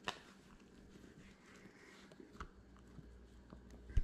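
Faint handling sounds of fingers pressing and smoothing the skin of a mounted whitetail deer's ear: soft rubbing with a few light clicks, a sharper click just after the start and a low thump near the end.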